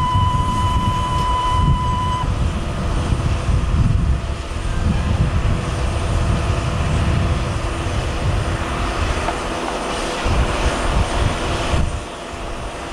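Steady rumble and whine of a Boeing 767-300ER airliner and its tow tug moving across the apron. A steady high electronic tone cuts off about two seconds in, and the noise drops a little near the end.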